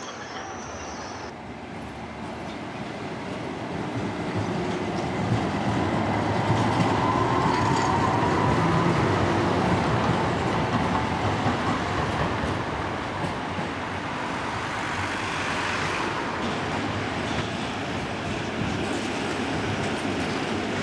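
Trams rolling past on street track. The wheel and running noise builds over the first few seconds and stays loud while the cars go by, with a faint rising whine in the middle.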